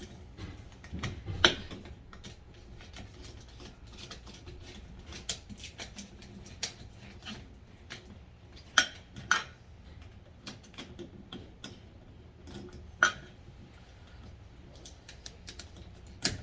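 Irregular small metallic clicks and taps of hand tools and wires while the conductors are connected to the terminals of a 240 V dryer receptacle. A few sharper clicks stand out: one about a second and a half in, two near nine seconds, and one near thirteen seconds.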